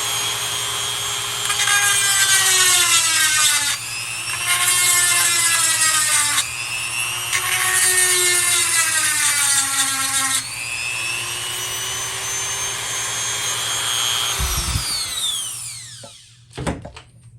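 Electric chainsaw sharpener's grinding-wheel motor whining, with three rasping grinding passes on the chain's cutter teeth; each pass drags the motor's pitch down under load. About fourteen seconds in the motor is switched off and its whine falls as it winds down.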